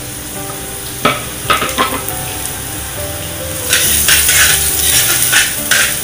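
Minced garlic sizzling in a little oil in a stainless steel pan, being stirred, with short scrapes of the utensil against the pan. The sizzling and scraping grow louder a little past halfway.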